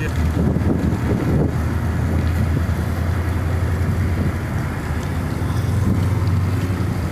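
A ship's machinery running with a steady low hum, under rushing wind noise on the microphone.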